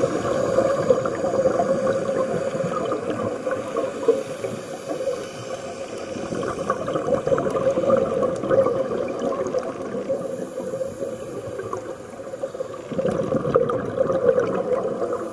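Scuba regulator breathing and exhaled bubbles heard underwater: a continuous muffled bubbling rush that rises and falls, dipping briefly about three-quarters of the way through.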